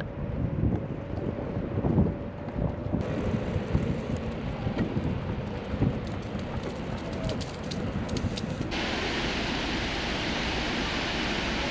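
Wind buffeting a handheld microphone while walking outdoors. About nine seconds in, a steady, even rush of falling water abruptly takes over: the Snake River falls.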